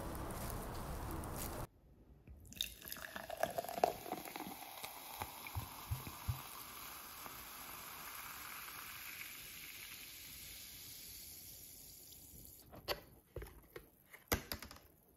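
Sparkling water poured into a paper cup, fizzing and popping, the fizz slowly dying away. Before it, steady outdoor background noise cuts off abruptly under two seconds in; a few sharp clicks come near the end.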